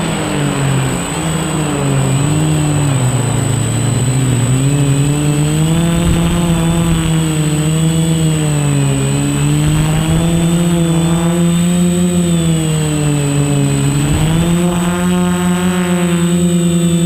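Quadcopter's electric motors and propellers whining in flight, the pitch wavering up and down with throttle changes, then rising and holding steadier near the end.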